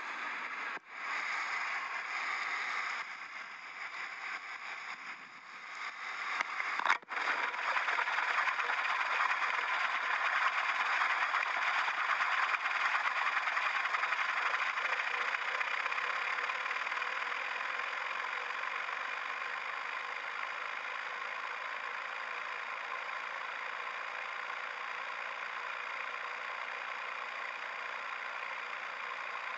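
Steady rushing wind noise on an action camera as it falls from a light aircraft and tumbles in free fall. It cuts out briefly near one second and again about seven seconds in, then comes back louder and stays even.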